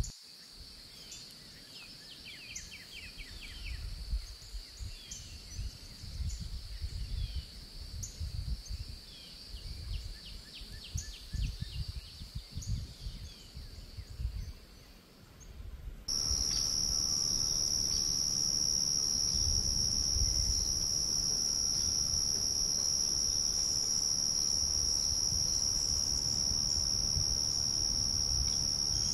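Insects trilling steadily in a high, unbroken band, with short runs of bird chirps now and then in the first half. About halfway through, the sound changes abruptly to a louder, higher-pitched steady insect trill, over a low rumble.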